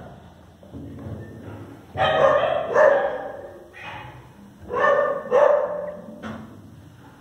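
A dog barking in short bunches of a few barks, with quieter pauses between them.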